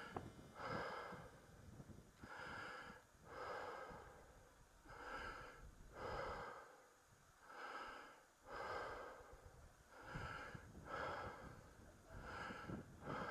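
A person breathing close to the microphone: faint, regular in-and-out breaths, about one every second and a half.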